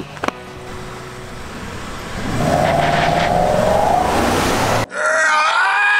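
Two V8 pickup trucks at a drag-race start line, a Ford F-150 with the 5.0 Coyote V8 and a GMC Sierra 1500. Engine noise swells from about two seconds in as they launch. Just before the end comes a loud run at full throttle, the engine note climbing and then falling away.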